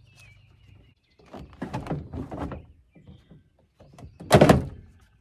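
Plastic rustling and light knocks as the door trim panel and vapour barrier are handled, then one loud thunk a little after four seconds in as the plastic door panel is set onto the door.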